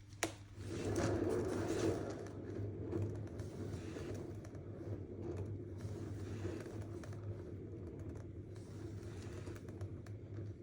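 A click, then a paint spinner running steadily, turning the freshly poured canvas with a low hum and a light clattering rattle.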